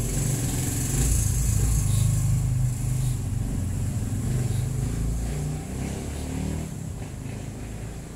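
A motor vehicle's engine running as it passes by on the street, loudest a second or two in and fading away toward the end.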